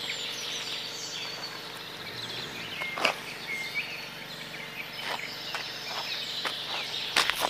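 Outdoor woodland ambience: a steady hiss of background noise with short bird chirps, and a few scattered knocks, the sharpest about three seconds in.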